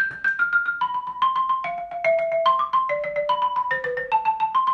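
Xylophone played with mallets: a legato melodic line of rolled notes, each pitch sustained by rapid repeated strokes and moving to a new note about every half second.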